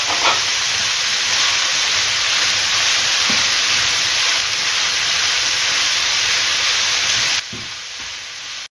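Chopped vegetables and chicken pieces sizzling steadily in oil in a frying pan over medium heat while being turned with a spatula, frying until they soften. The sizzle drops quieter about seven and a half seconds in.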